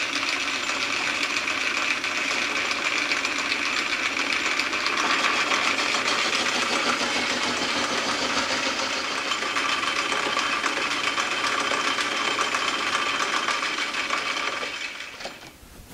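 Belt-driven metal lathe running while facing a rough-cut bar of stock in the three-jaw chuck: a steady machining noise from the cut and the drive, which fades out near the end as the lathe stops.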